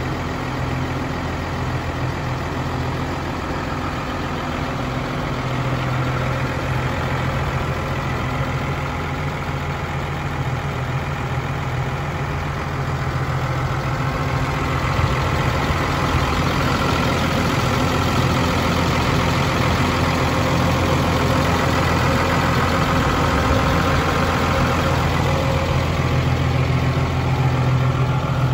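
New Holland T7.270 tractor's six-cylinder diesel engine idling steadily, growing a little louder about halfway through.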